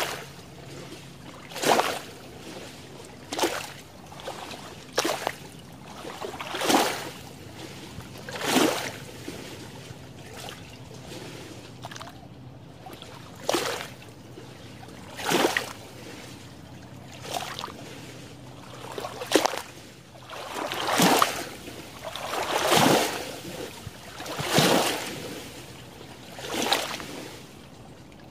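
Small lake waves lapping and splashing against the shallow shore among water plants, a short wash roughly every two seconds, with a brief lull partway through.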